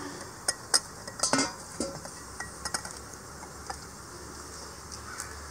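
Stainless steel cooking vessels clinking against each other several times, sharpest in the first couple of seconds, while a hand mixes gram-flour batter in a steel tin. Crickets chirr steadily in the background.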